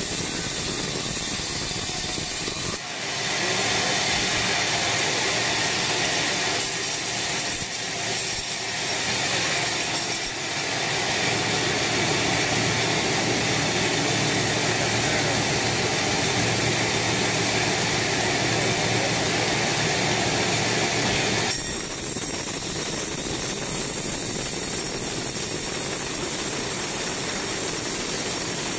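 Band sawmill running, its blade cutting lengthwise through an old weathered teak log with a steady rasping noise. The sound shifts abruptly about three seconds in and again past the twenty-second mark.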